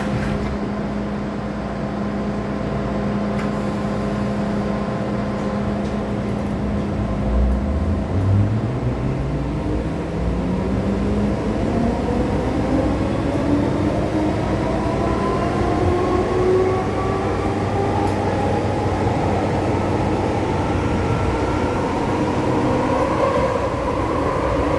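MTR M-Train electric multiple unit heard from inside the carriage: a steady electrical hum while it stands. About a third of the way in, the traction motors start and their whine rises steadily in pitch as the train pulls away and accelerates.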